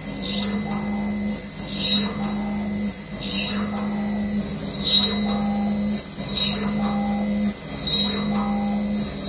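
Pipe drilling machine's spindle running with a steady hum while the drill bores hole after hole in a metal tube. Each hole is a short, sharp, high-pitched cutting sound, coming roughly once a second, and the loudest strokes come near the start and about a second and a half and three seconds in.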